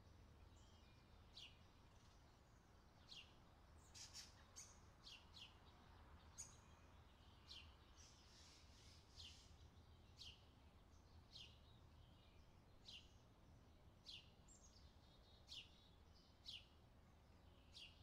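Faint outdoor ambience of small birds chirping: short, high notes that fall in pitch, repeating about once a second, over a low steady rumble.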